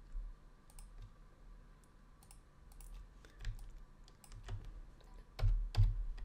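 Computer keyboard keys and mouse buttons clicking in scattered single clicks, with a quick group of louder clicks near the end.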